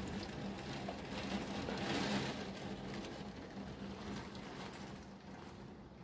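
Heavy thunderstorm rain and gusting wind heard from indoors through a closed window. The noise swells about two seconds in and then eases off.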